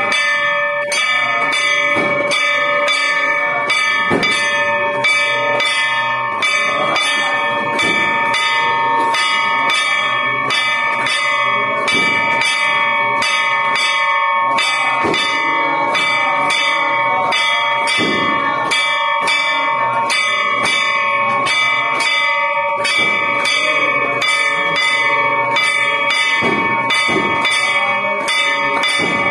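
A hanging brass temple gong beaten with a wooden stick in a fast, even rhythm, about three strikes a second, its ringing building into a continuous metallic clangour, as is done during an aarti.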